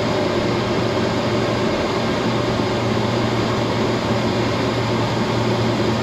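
Steady cockpit noise of a Beriev Be-200 amphibious jet in flight: the even drone of its two turbofan engines and the rush of air, with a constant low hum underneath, heard from inside the cockpit as it descends over the sea.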